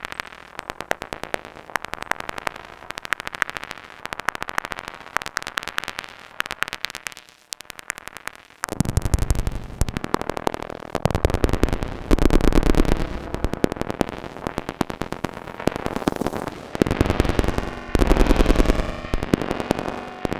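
Make Noise Eurorack modular synthesizer (XPO oscillator and QMMG) playing microsound: dense streams of rapid clicking pulses and grain trains. About nine seconds in it grows louder and fuller, with a deep low end and swelling bursts.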